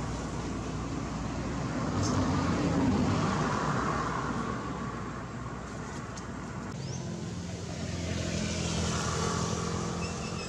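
Road traffic: passing vehicles, the noise swelling and fading twice, loudest about a third of the way in and again near the end.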